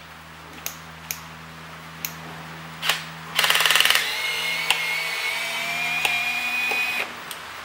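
Handheld electric power tool, such as a drill driver, working a cowl mount bolt. A few light clicks come first, then a short rattling burst about three and a half seconds in. After that the motor runs with a steady whine that rises slightly in pitch for about three seconds and stops abruptly.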